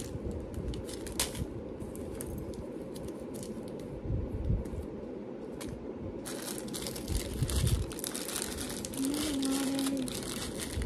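Plastic packaging crinkling and rustling with scattered light clicks as jewelry findings are handled and sorted by hand.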